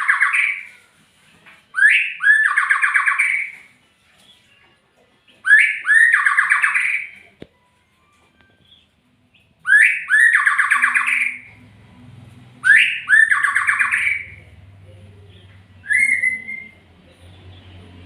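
Murai songbird singing a repeated phrase about every four seconds: a quick rising note and then a fast rattling trill. The last phrase, near the end, is a single short rising note. A faint low rumble runs under the later phrases.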